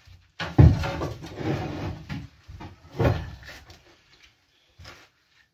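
Heavy floor panels being lifted and moved around on a narrowboat's stripped floor: a loud knock about half a second in, rough scraping for over a second, another knock at about three seconds and a lighter one near the end.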